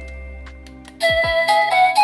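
Wireless doorbell chime playing electronic melody ringtones. The last notes of one tune fade away, and about a second in a new tune of steady, stepping notes starts: the next ringtone in the selection.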